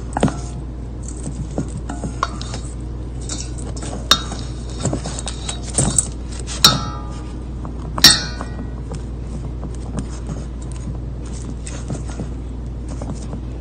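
Chopsticks tapping and scraping against a stainless steel mixing bowl while tossing pork belly in minced lemongrass marinade. Irregular light clinks, with a few louder ringing knocks around four, seven and eight seconds in.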